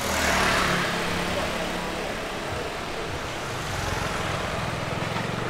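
Motor scooter engines running in a narrow street. One passes close by, its engine and rush loudest about half a second in before fading, and more scooters can be heard in the lane toward the end.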